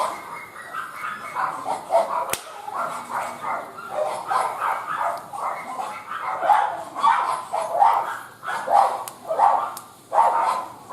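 A dog barking repeatedly, in short bursts one or two a second, with a single sharp click about two seconds in.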